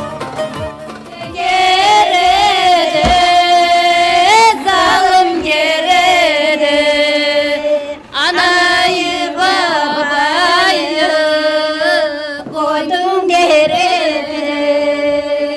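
A high, loud voice singing a slow, ornamented folk melody in long wavering phrases with short breaks between them. A single low thump about three seconds in.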